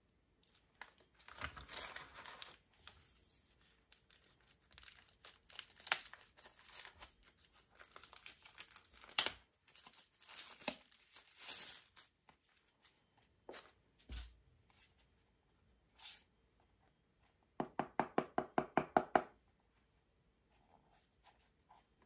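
Packaging being torn open and crinkled by hand in an unboxing, in irregular bursts for about twelve seconds. Then a single thump, and near the end a quick even run of about a dozen clicking strokes.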